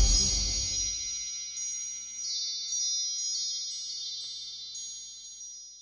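Logo sting of high, chime-like tones with light tinkling strikes over them, slowly fading out. A low rumble left from the preceding music dies away in the first second.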